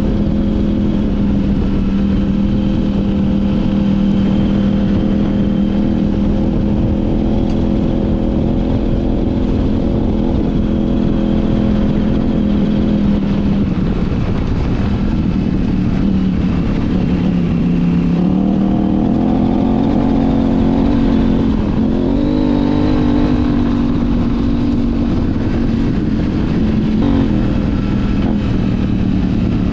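KTM 790 Adventure R's parallel-twin engine, fitted with an Arrow titanium slip-on and de-cat mid pipe, running at a steady cruise on a dirt track. About halfway through the engine note drops as the throttle is eased, then climbs again as the rider gets back on the gas, before settling back to a steady pull.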